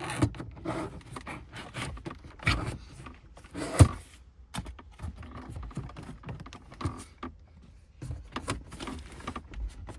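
A plastic pry tool prising the BMW i3's lower interior trim panel loose, making irregular plastic clicks, scrapes and knocks as its clips are unhooked. The sharpest knock comes about four seconds in.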